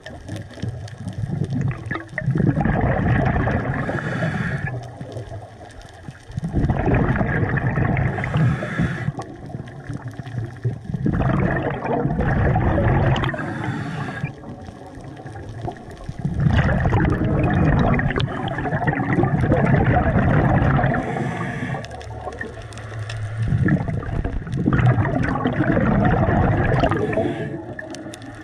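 Underwater: a diver's exhaled breath bubbling and gurgling out in surges every few seconds, with quieter pauses between.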